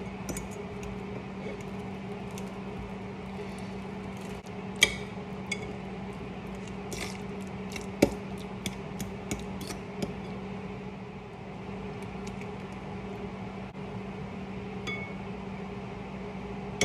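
A metal fork mashing banana in a ceramic bowl: scattered sharp clinks and taps against the bowl, two louder knocks, and a quicker run of taps in the middle, over a steady low hum.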